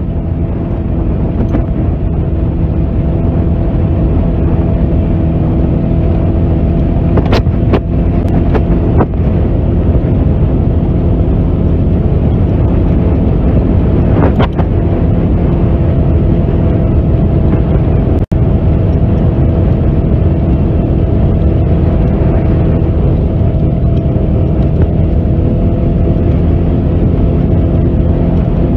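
Side-by-side UTV engine running steadily at trail speed, heard from inside the cab over dirt-road noise, with a few sharp knocks about a quarter and halfway through.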